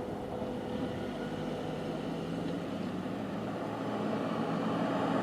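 Steady droning vehicle noise with a low engine hum that grows slightly louder near the end.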